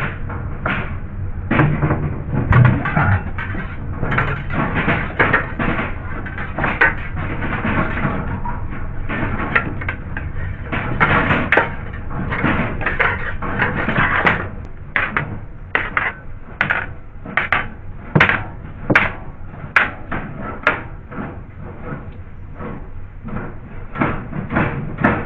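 Knocking, clicking and scraping as a rod of joined antenna sections is worked through a ceiling cavity, catching on obstructions inside. The scraping and knocking are dense for about the first half, then turn into separate sharp knocks a few per second.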